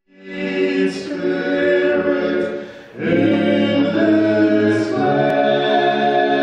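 Men's chamber choir singing a cappella in close harmony, holding sustained chords. The sound dips briefly near three seconds in, and the next phrase comes in fuller.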